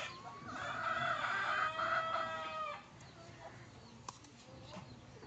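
A rooster crowing once, one long call of a little over two seconds that drops in pitch at the end. A single short click follows a little later.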